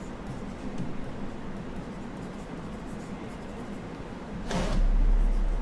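Stylus writing on a tablet screen, faint taps and scratches over a steady low hum, with a brief louder rustle about four and a half seconds in.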